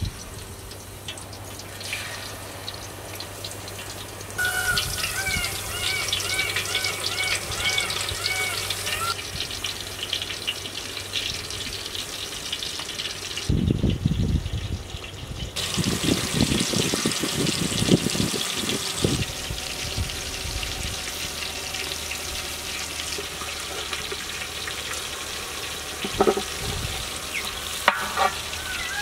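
Spice-coated tuna steak pieces sizzling as they fry in oil in a large aluminium pot, the hiss getting stronger about four seconds in. A few low rumbling thumps come about halfway through.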